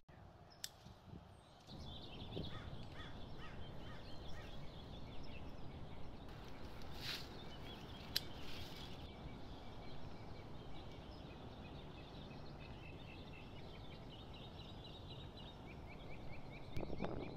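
Outdoor garden ambience: small birds chirping in quick repeated calls over a steady low rumble. One sharp snip of scissors cutting a zucchini stem comes about eight seconds in.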